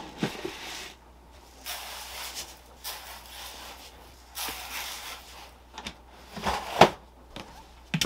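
Plastic cat litter box parts being handled and set down on the floor: scraping and rustling, with a sharp plastic knock about seven seconds in.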